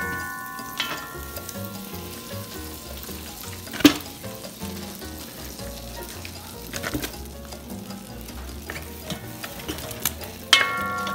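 Sticks of butter sizzling steadily as they melt in a hot stainless-steel pot. There is a sharp knock about four seconds in, and a brief ringing tone near the start and again near the end.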